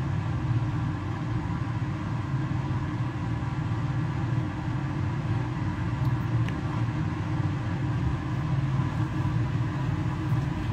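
A steady low rumble of room or handling noise with no voice over it, and a faint tick about six and a half seconds in.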